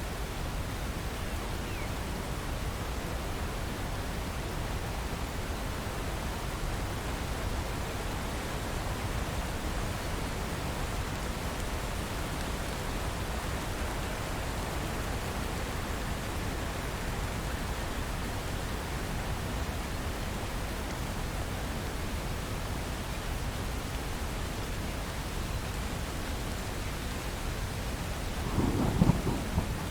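Steady rain, an even continuous hiss, with a short burst of thunder near the end that is the loudest moment.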